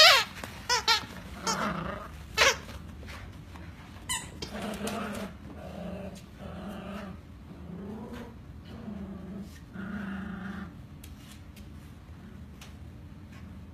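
Two schnauzer puppies play-fighting: a loud yelp at the start and a few short yips and squeals over the next couple of seconds, then a string of low play-growls that fades out near the end.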